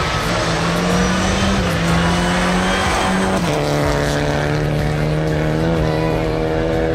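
Renault Clio Rally5's 1.0-litre three-cylinder turbo engine held at high, steady revs under load. Its note dips briefly about a second and a half in, then drops to a lower steady pitch about three and a half seconds in.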